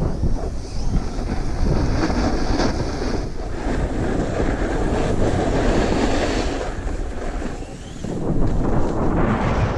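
Wind rushing over an action camera's microphone during a run down a groomed ski slope, mixed with the hiss of the rider sliding over packed snow. The noise drops for a moment just before eight seconds in, then picks up again.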